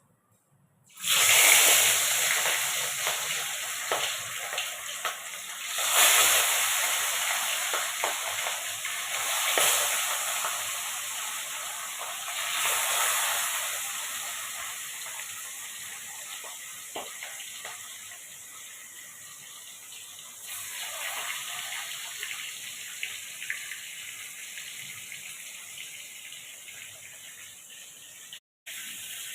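Food frying in hot oil: a loud sizzle with crackles that starts suddenly about a second in, flares up again a few times and slowly dies down.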